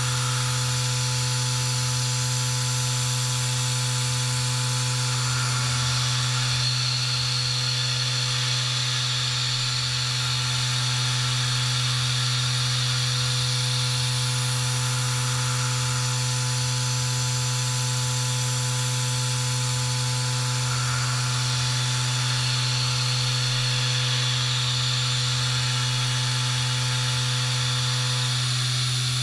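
Tongtai CT-350 five-axis machining center milling P20 mold steel with an 8 mm end mill at 7,500 rpm. It makes a steady cutting hum with a few level whining tones over a constant hiss.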